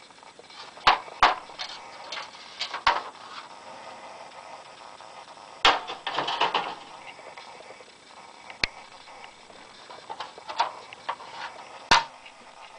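Metal street name signs knocking and clanking against each other as they are flipped through one by one, with sharp clicks every few seconds and a longer scraping slide about six seconds in.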